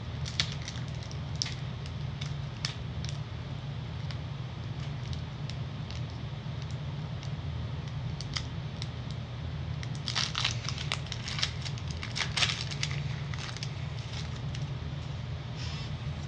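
Foil wrapper of a Pokémon booster pack crinkling and being torn open: scattered crackles, with a denser run of crinkling about ten seconds in, over a steady low hum.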